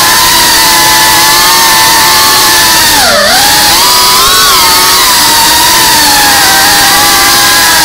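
FPV quadcopter's brushless motors and propellers whining steadily, recorded on board. About three seconds in the pitch drops sharply and climbs back up as the motors slow and speed up again.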